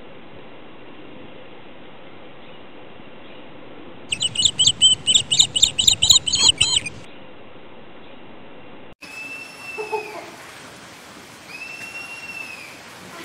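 Animal calls: a rapid run of loud, high chirps for about three seconds, then, after a cut, long high whistled calls that rise and fall, repeating every couple of seconds.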